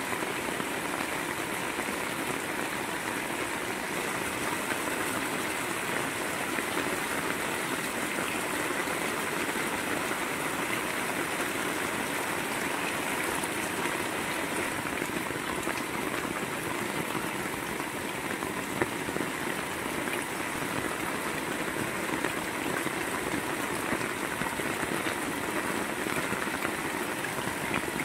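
Heavy rain falling steadily on corrugated metal roof sheeting and a wet concrete yard, with runoff pouring off a roof edge. A single brief knock about two-thirds of the way through.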